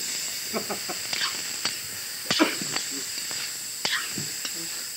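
Chopped vegetables sizzling in hot oil in a large metal wok as they are stir-fried, with a steady hiss and the metal spatula clacking and scraping against the pan.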